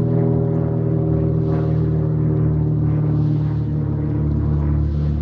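An engine running at a steady speed, with an unchanging hum.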